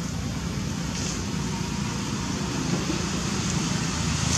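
Steady outdoor background noise with a low rumble, and no distinct event.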